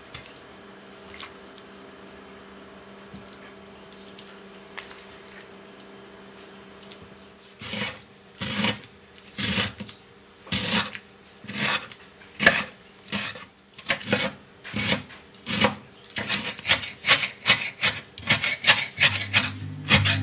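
Rhythmic rasping, rubbing strokes of hand food preparation in a kitchen. They start about a third of the way in at roughly one stroke a second and quicken to about two a second near the end, over a faint steady hum.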